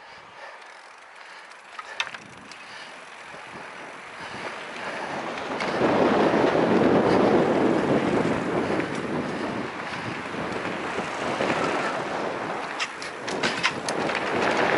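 Wind rushing over the microphone and tyres rolling on a packed-dirt trail as an electric mountain bike rides downhill, growing louder about six seconds in as it gathers speed. A few sharp clicks and rattles come from the bike near two seconds in and again near the end.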